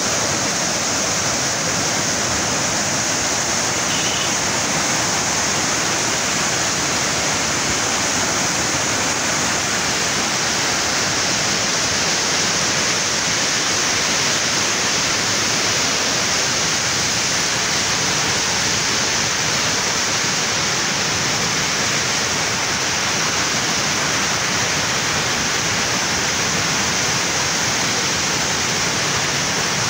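A river in flood, its churning, muddy torrent rushing past in a loud, steady wash of water noise.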